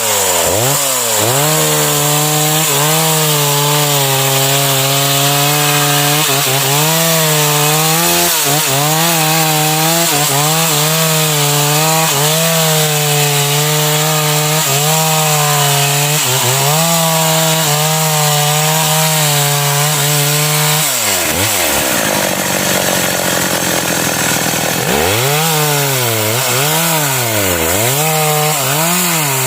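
Stihl MS 381 two-stroke chainsaw cutting into a large sengon (albizia) trunk, the engine held at high speed under load with brief dips in pitch. About 21 seconds in it drops back for a few seconds, then is revved up and down repeatedly.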